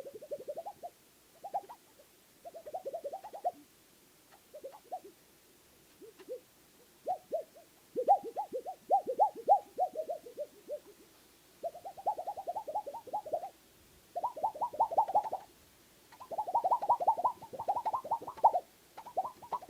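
Plastic plate giving off bursts of rapid juddering chatter, each a quick run of pulses lasting about half a second to two seconds, with short gaps between. From about eight seconds in the bursts come louder and longer.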